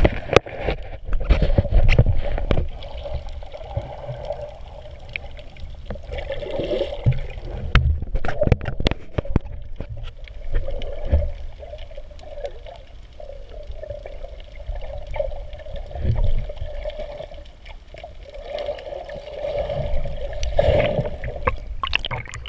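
Muffled underwater water noise heard through an action camera's waterproof housing: sloshing and gurgling with frequent short knocks against the housing. Near the end it grows louder as the camera breaks the surface.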